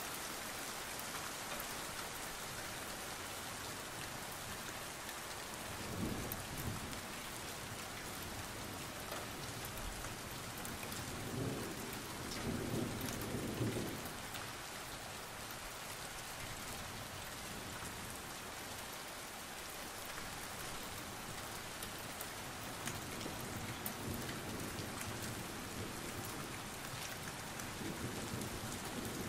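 Steady rain falling, an even hiss throughout, with low rumbles rising out of it about six seconds in and again, louder, around twelve to fourteen seconds.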